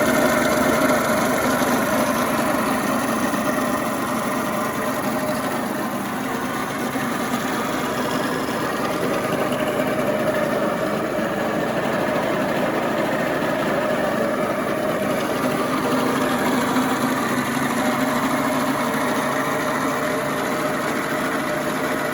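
Suzuki Street Magic 50's small two-stroke single-cylinder engine idling steadily with an abnormal mechanical noise from inside the engine, which the owner takes for a worn crankshaft main bearing or big-end bearing.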